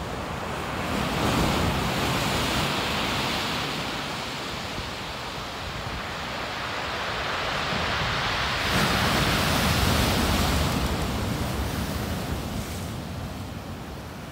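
Rough surf breaking and washing onto the shore. It swells louder twice, about a second in and again around nine seconds in, then eases off near the end.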